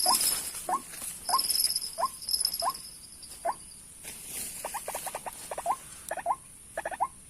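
White-breasted waterhen calling: short, sharp notes repeated about once or twice a second, with a quicker run of notes in the middle. A steady, high insect drone runs underneath.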